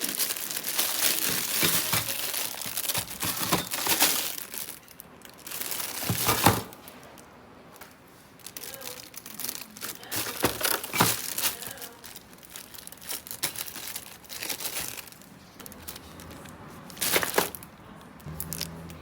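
Packaging being torn open and crumpled by hand: crinkling and tearing, steady for the first several seconds, then in scattered rustles, with a sharp crackle about six seconds in and another near the end.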